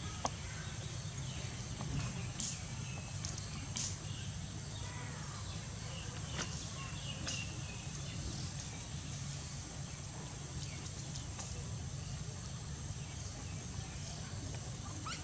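Outdoor ambience: a steady high-pitched drone over a low rumble, with a few faint short chirps and a handful of brief light clicks.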